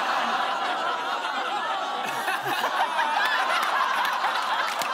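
Studio audience laughing, many voices at once.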